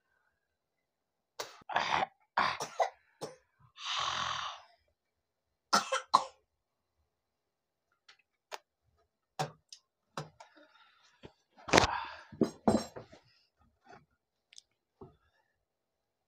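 A man coughing and spluttering in separate short fits, with a longer harsh breath out about four seconds in, from the burn of a super-hot Jolo chip.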